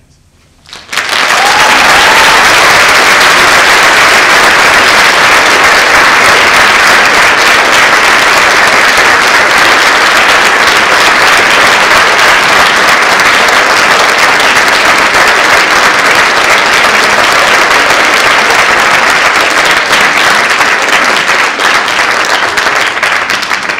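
Audience applauding: a loud, steady wash of clapping that starts abruptly about a second in and eases off slightly near the end.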